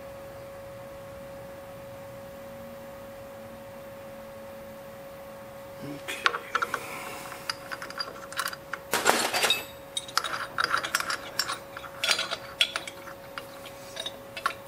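Keyed drill chuck on a milling machine being opened and closed by hand to change the bit: many sharp metal clicks, clinks and rattles of the chuck key and bit, starting about six seconds in. A steady hum runs underneath.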